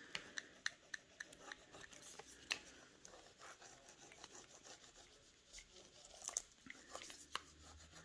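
Faint, irregular scratching and ticking of a small applicator rubbing over the plastic backing film of a rub-on furniture transfer, pressing the transfer onto painted wood so that it sticks.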